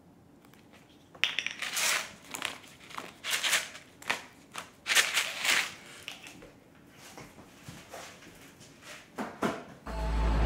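Dry scraping and crunching of toast, a run of short rough strokes at an uneven pace that starts about a second in. Music comes in near the end.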